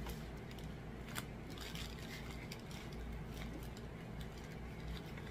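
Light rustling and crinkling of a diamond-painting canvas's clear plastic cover film as hands press and smooth it flat on a table, with scattered small ticks, a sharper one about a second in, over a steady low hum.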